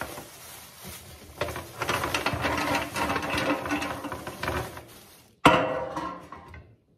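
Frozen strawberries clattering as they slide off a metal baking tray into a plastic bag, with the bag crinkling: a quick run of hard little clicks, then a sudden louder rustle about five seconds in that dies away.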